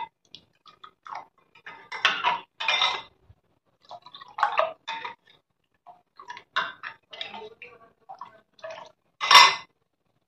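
Metal ladle clinking and scraping against a glass bowl while stirring a watery paste, in scattered short knocks, with the loudest clink near the end.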